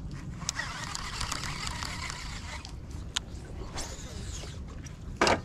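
Fishing reel whirring for about two seconds as a cast pays out line, then a few sharp clicks as the reel is worked, over a steady low rumble.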